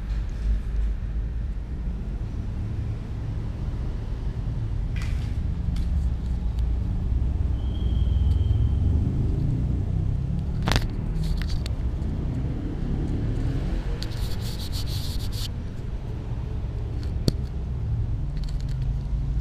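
Steady low rumble of background noise, with a few scattered faint clicks and a brief high tone about eight seconds in.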